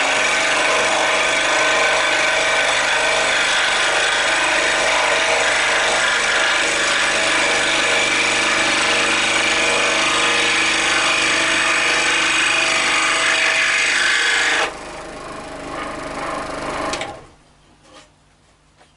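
Record Power SS16V variable-speed scroll saw running and cutting a curved line through a piece of wood, a steady loud sawing buzz. About 15 s in it drops to a lighter running sound, then stops about two seconds later.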